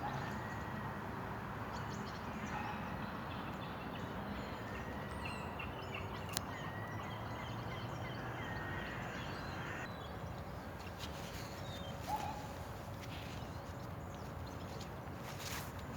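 Birds calling outdoors: thin whistled notes and short calls over a steady background hiss, with one sharp click about six seconds in.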